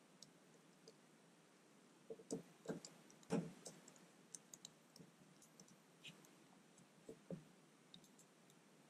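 Faint clicks and small knocks of a precision screwdriver turning the clamp screw of a small screw terminal block, tightening it down on a wire. The knocks come in a cluster about two to three and a half seconds in and again around seven seconds.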